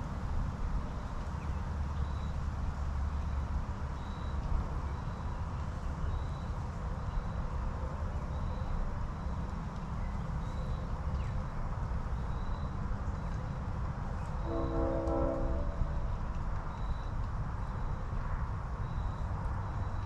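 Distant train horn sounding once for about a second and a half, over a steady low rumble. A faint high peep repeats about once a second throughout.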